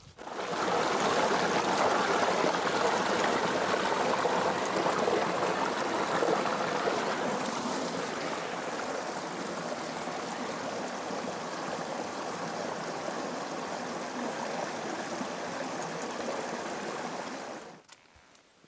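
Small mountain creek running over rocks: a steady rush of water, louder in the first half, that cuts off suddenly near the end.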